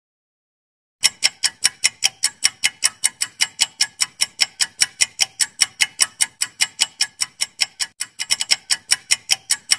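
Countdown-timer clock-ticking sound effect: sharp, evenly spaced ticks about four a second, starting about a second in and briefly quickening near the end.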